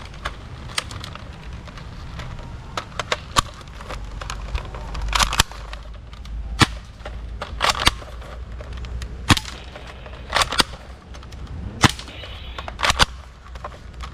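Toy sniper rifle fired over and over: sharp cap-gun-like cracks and clicks at irregular intervals, often in quick pairs.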